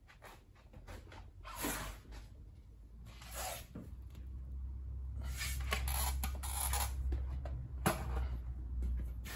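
Blue masking tape being pulled and pressed along the edges of a wired glass pane in a steel door: several short ripping, rubbing strokes, most of them packed together in the second half, and a sharp click near the end, over a low rumble.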